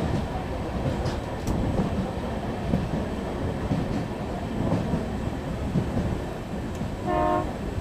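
A train running on the track, a steady rumble with a few sharp clicks of wheels over rail joints. About seven seconds in comes a short single blast of a train horn.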